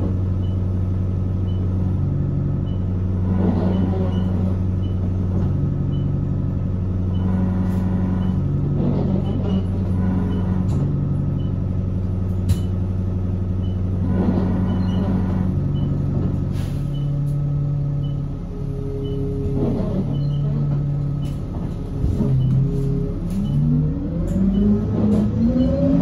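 City bus engine idling steadily while the bus stands, heard from inside the passenger cabin. Near the end it revs up as the bus pulls away, with a turbo whine climbing in pitch.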